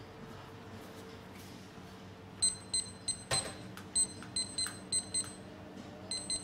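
Deck oven's keypad beeping as its buttons are pressed: about ten short, high beeps from some two and a half seconds in, with one knock among them, over a steady low hum.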